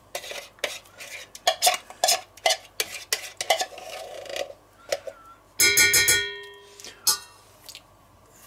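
A metal spoon scraping and clicking against a tin can and a stainless steel pot as thick coconut milk is spooned out. About six seconds in comes one loud metallic clang that rings on for about a second.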